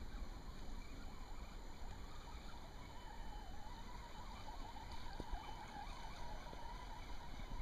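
Traxxas Summit RC crawler's electric motor and drivetrain whining as the truck churns through shallow creek water and mud. The pitch wavers with the throttle, over a low rumble.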